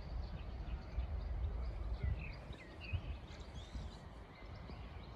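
Outdoor ambience: a steady low rumble with a few short bird chirps about two to three seconds in.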